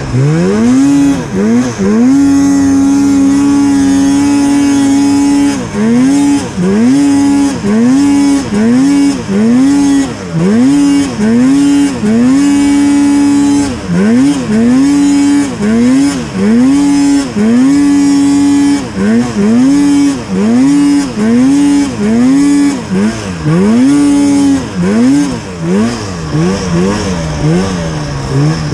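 Arctic Cat Mountain Cat snowmobile engine revving hard and letting off in quick repeated throttle blips, about once a second, with a few longer stretches held at high revs, working under load in deep powder. Near the end the revs drop lower and waver.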